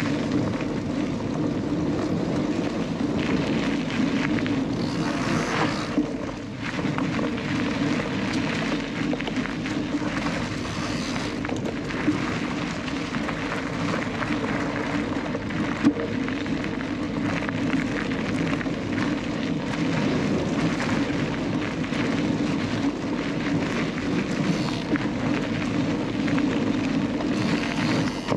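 Mountain bike rolling along a forest singletrack, heard from an onboard camera: a steady rush of wind and tyre noise, with a few sharp knocks as the bike goes over bumps.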